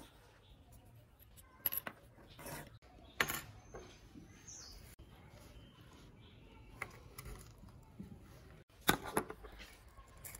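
Irregular small clicks, taps and scrapes of plastic and metal parts being handled and pried apart while a corroded AirPods charging case is dismantled with a small screwdriver. The loudest clatter comes as a quick cluster near the end.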